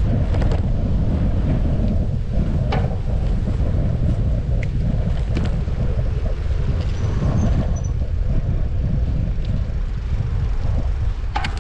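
Wind buffeting an action camera's microphone while cycling: a dense, steady low rumble, with a few light clicks and rattles along the way.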